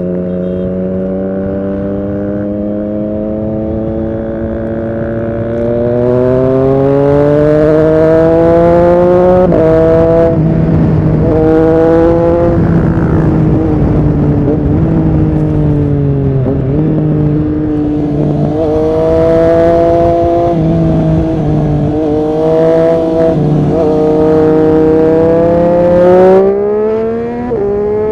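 Triumph Street Triple RS 765's inline three-cylinder engine through an SC-Project S1 exhaust, pulling hard through several upshifts as its pitch climbs and drops with each gear change. It eases off in the middle, then pulls again. A sharp pop comes about 26 seconds in, followed by a downshift.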